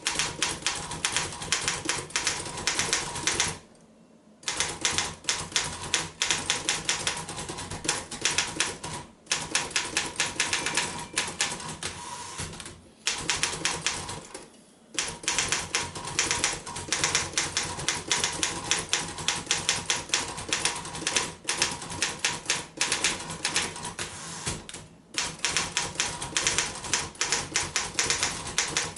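1939 Royal KMM manual office typewriter being typed on at a fast, steady pace: a rapid run of key strikes, broken a few times by brief pauses.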